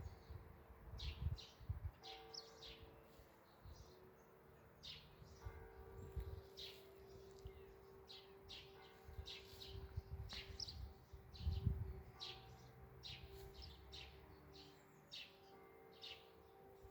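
Distant civil-defence sirens from neighbouring villages sounding faintly during a siren test, a steady two-note tone that swells and fades. Birds chirp often over it, and there are low rumbles now and then, loudest about eleven seconds in.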